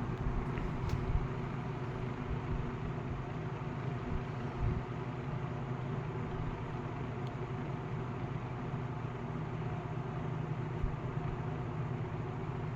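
1950s Kenmore automatic box fan with a GE motor running on its low speed, a steady motor hum under the rush of moving air. The owner calls it a very mellow low speed.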